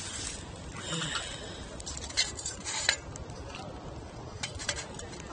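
Camping gear being handled: clinks and clatter, with a few sharp knocks, like dishes or utensils being moved about.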